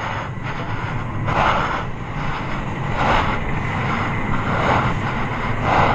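A steady low mechanical drone, with a short rushing noise swelling about every second and a half.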